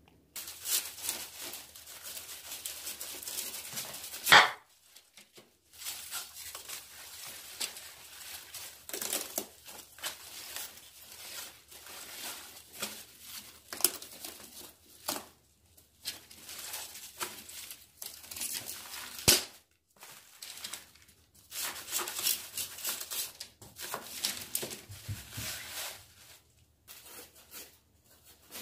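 Kitchen knife cutting and trimming a whole napa cabbage on a wooden cutting board: crisp, irregular crunching and crinkling of the stem and leaves. Twice a sharp, louder crack stands out.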